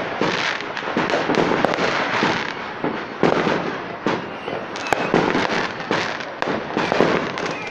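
Aerial fireworks going off in quick succession: a near-continuous run of bangs and crackling, with a sharp crack about three seconds in.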